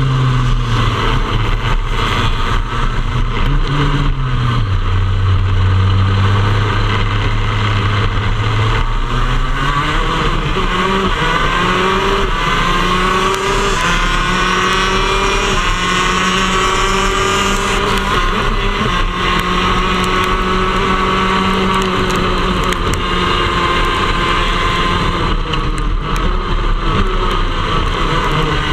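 Shifter kart engines (125cc two-stroke singles) heard onboard in a large pack. A low, uneven drone for the first several seconds, then the pitch climbs about nine seconds in as the engines rev up and accelerate, and it holds high and steady after that.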